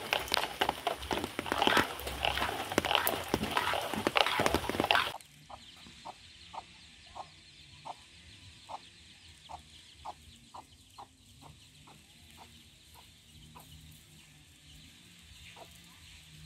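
A loud, dense clatter of sharp strikes for about five seconds, which stops abruptly. After it, a hen clucks on and off, short low calls about twice a second.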